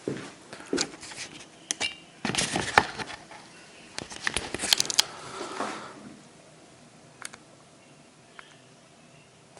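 Hands working on an old typewriter: a run of small clicks, knocks and rustling, busiest for the first six seconds, then one sharp click a little past seven seconds.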